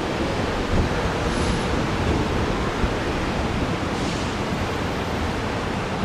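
Steady noise of road traffic on the airport's terminal roadway, with wind buffeting the microphone.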